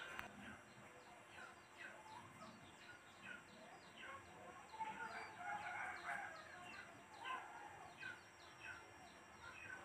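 Faint birds chirping: short chirps sliding down in pitch, repeating two or three times a second, with a busier burst of calls around the middle.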